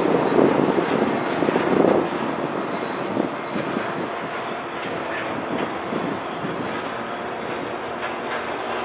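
Diesel freight train passing close by, louder for about the first two seconds while its locomotives go past. Then covered hopper cars roll by with a steady rumble of wheels on rail and light clicks.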